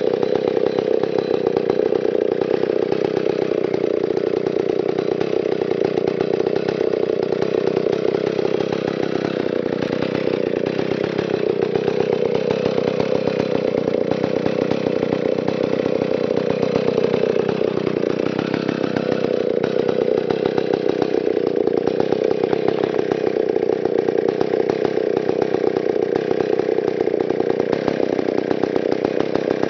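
Stihl 090 chainsaw's big two-stroke engine idling steadily while the saw rests on the ground. Its note sags and recovers once about halfway through.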